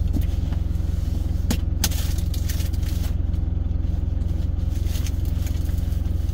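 Truck engine idling steadily, heard inside the cab as a low hum with a fast even pulse. Two short clicks sound about a second and a half in.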